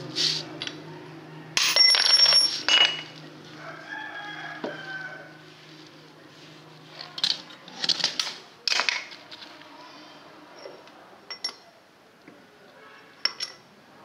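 Sharp metallic clanks and ringing knocks of tools against a diesel cylinder head and its valve springs while the springs and keepers are being fitted. The loudest burst comes about two seconds in, with more knocks around eight and thirteen seconds. A rooster crows about four seconds in.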